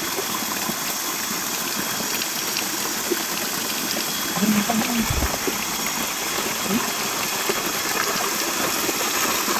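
Spring water pouring steadily out of the end of a hose and splashing onto the ground, a constant rushing hiss. A single low thump about five seconds in.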